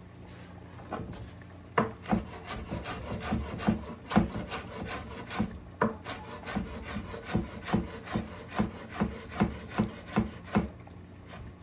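Knife chopping fresh basil on a cutting board: a steady run of quick chops, about three a second, starting about two seconds in.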